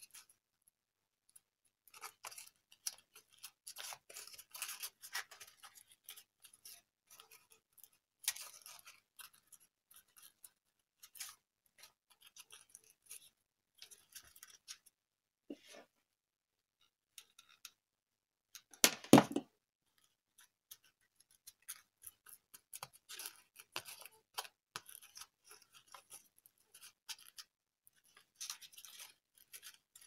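Faint, intermittent rustling and scratching of glitter foam sheet strips being handled and woven together by hand, with one louder knock about two-thirds of the way through.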